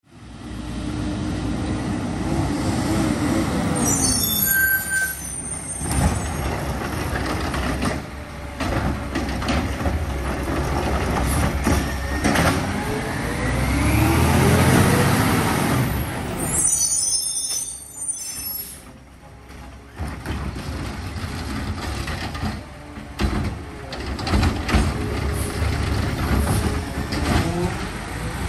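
Peterbilt 520 garbage truck with a McNeilus ZR side-loader body, its diesel engine running and revving up and down, with two sharp air brake hisses.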